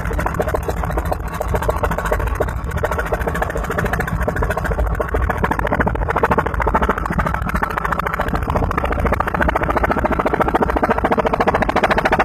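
Helicopter running, its rotor beating in a fast, even chop over the steady hum of the engine.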